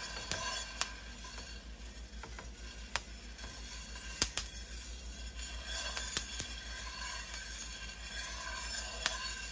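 Coffee beans hitting first crack in a pan on the stove: irregular sharp pops over a steady sizzling hiss, while a metal whisk stirs the beans.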